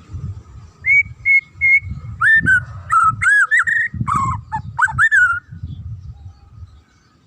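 White-rumped shama (murai batu) singing: three short, even whistles, then a quick run of looping whistled notes that glide up and down and stop a little past five seconds in. A low rumbling noise runs underneath.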